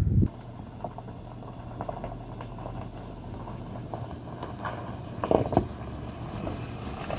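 Jeep Wrangler Unlimited on 33-inch tires creeping over a rocky trail: a low steady engine hum, with loose stones crunching and clicking under the tires, loudest a little past the middle.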